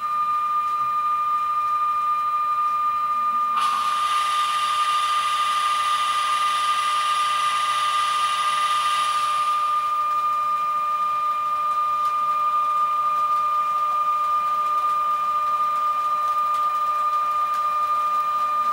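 Model ES 64 U2 electric locomotive running past at a steady speed, giving a steady high-pitched whine. A hiss joins about three and a half seconds in and stops about ten seconds in.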